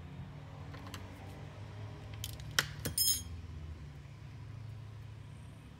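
Desoldering wick being handled by hand: a few small clicks, then a short metallic clink with a bright ring about three seconds in, over a steady low hum.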